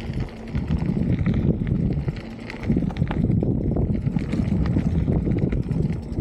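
Beach cruiser bicycle rolling over a rough dirt trail: a steady low rumble with quick rattles and clicks from the tyres and frame.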